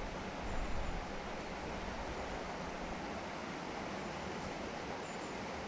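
Steady outdoor wind noise, with a gust buffeting the microphone about half a second in.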